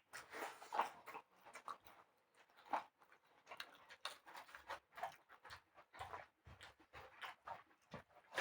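Faint, scattered mouth and eating sounds: short smacks and clicks of people chewing food during a meal.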